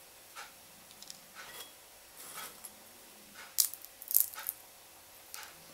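Sunflower seed shells being cracked open between the fingers: scattered faint clicks, with a few sharper cracks a little past halfway through.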